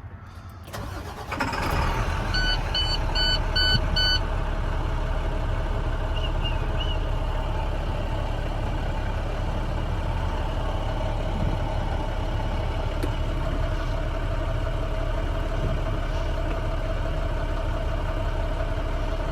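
2013 International DuraStar medium-duty truck's diesel engine cranking and starting about a second in, then idling steadily. A short run of evenly spaced dashboard warning beeps sounds just after it starts.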